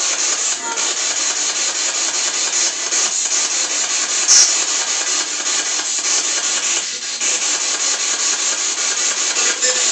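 Spirit box radio static: a steady loud hiss with a fast flutter as the device sweeps through stations, with a sharp click about four seconds in.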